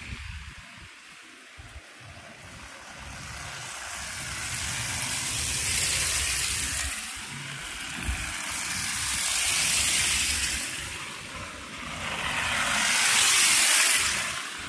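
Cars driving past one after another on a snowy street: tyre hiss swells and fades three times, loudest near the end.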